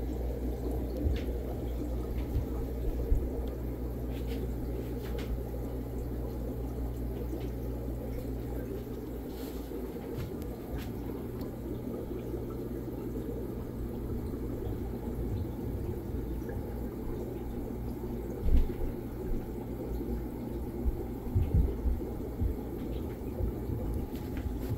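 Steady water and air bubbling from aquarium filtration, with a low hum that fades about ten seconds in. A few dull bumps come near the end.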